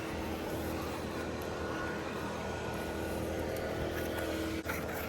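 An engine running steadily at a constant speed, with a brief drop in level near the end.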